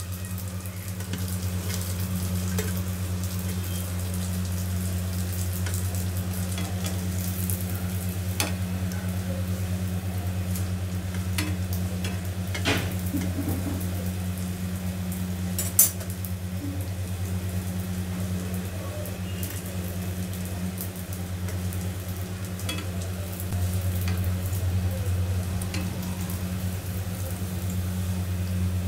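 A crumb-coated pasta snack on a skewer deep-frying in hot oil in a kadhai, the oil sizzling steadily, with a few sharp taps of a metal spatula against the pan. A steady low hum runs underneath.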